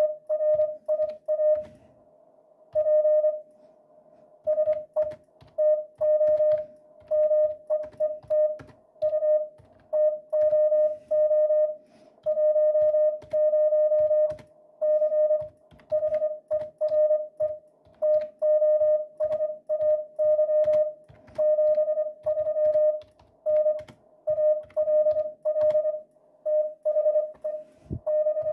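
Morse code (CW) tone from a ham radio station's MFJ-464 Morse keyboard and Yaesu FTDX 3000 transceiver: a single steady mid-pitched tone keyed on and off in dots and dashes, pausing for about two seconds a couple of seconds in. Short sharp clicks, the typing on the computer keyboard that drives the MFJ-464, run along with it.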